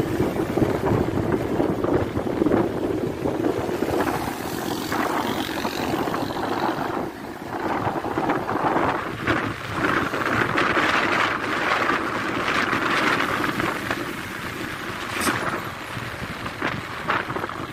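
Wind rushing over the microphone of a moving motorcycle, mixed with the bike's running and road noise.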